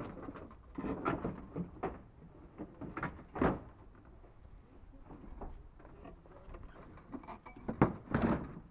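Plastic rear bumper cover of a Dodge Charger being lifted and fitted back onto the car, with irregular knocks, clunks and scraping of plastic against the body. The sharpest knocks come about three and a half seconds in and twice near the end.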